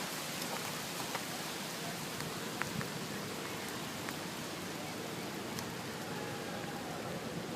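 Steady outdoor background hiss, with a few faint clicks and ticks scattered through it.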